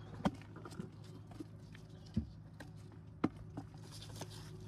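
Grape-picking shears snipping bunches off the vine: scattered sharp clicks and snaps, three louder than the rest, over a steady low hum.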